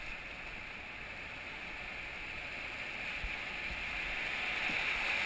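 River rapids rushing, an even noise that grows steadily louder as the raft nears the whitewater.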